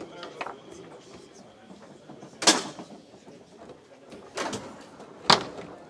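Foosball table in play: the ball struck by the plastic player figures and hitting the table, heard as three sharp knocks over the second half.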